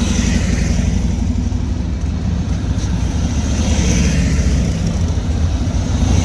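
Road traffic passing close by: a loud, steady low rumble, with tyre hiss swelling and fading as vehicles go past near the start and again a little past the middle.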